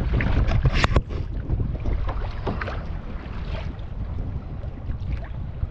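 Kayak being paddled through choppy water: irregular splashing of paddle strokes and water against the hull, with wind buffeting the microphone, heaviest in the first second.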